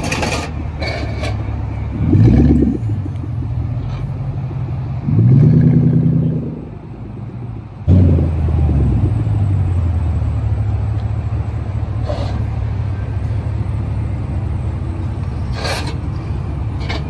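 Car engine idling with a low, steady rumble, revved briefly about two seconds in, held higher for over a second around five seconds in, then revved sharply again near eight seconds, its pitch falling back to idle. A few sharp clicks are heard through it.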